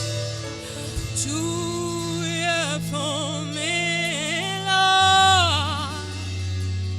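Gospel worship song: a solo voice sings long held notes with vibrato over a steady keyboard and bass accompaniment.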